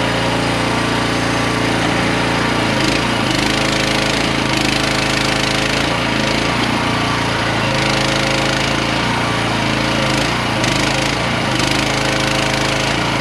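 The small engine of a QH13R micro mini excavator runs hard at high throttle. Its pitch sags and recovers several times as the digging loads it down.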